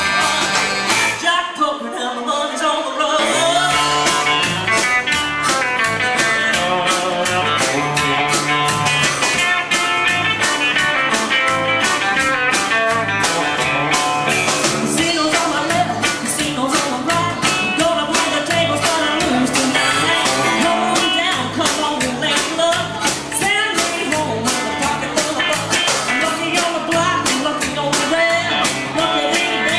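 Live rock and roll band playing a bluesy number: female lead vocal, electric guitar, drums with a steady cymbal beat, and a harmonica played into a bullet microphone. The band briefly drops out about two seconds in, then the full beat comes back.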